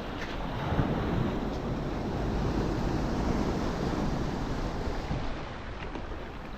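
Sea waves surging and washing in, with wind buffeting the microphone in a low rumble that swells and eases.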